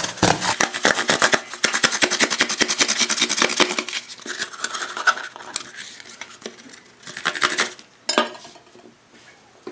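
Serrated knife sawing through the cardboard-and-foil side of a Pringles can in quick rasping strokes for about four seconds, then slower, scattered strokes that die away near the end.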